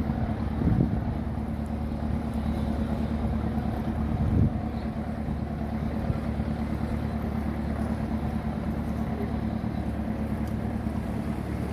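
An engine running steadily with a low, even hum, with a brief thump just under a second in and another about four and a half seconds in.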